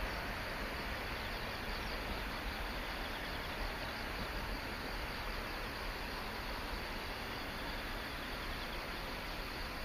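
Insects chirping steadily in a continuous chorus, over a low, even rumble.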